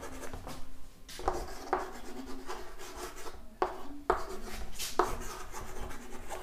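Chalk scratching on a chalkboard as words are handwritten: a run of short, scratchy strokes with brief pauses between them.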